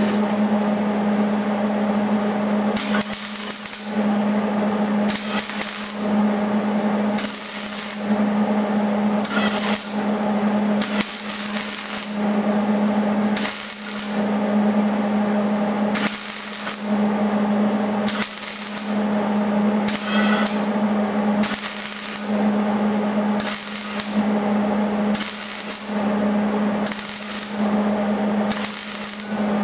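Wire-feed (MIG) welder laying short stitch welds: about fifteen bursts of arc crackle, each under a second to about a second long, spaced every one and a half to two seconds, over a steady low hum.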